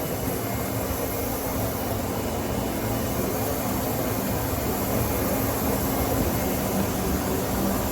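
Steady hum of running shop machinery: an even noise with a low, steady tone underneath, unchanging throughout.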